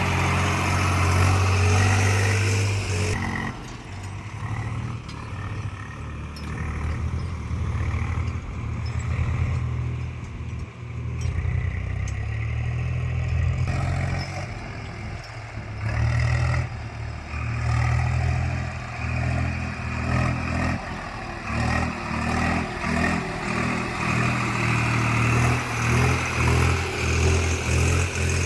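Heavy diesel engine of a working machine running, its loudness rising and falling repeatedly, with a drop about three seconds in.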